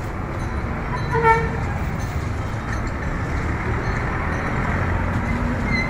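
Steady street noise of traffic and commotion, with one short, loud horn-like toot about a second in.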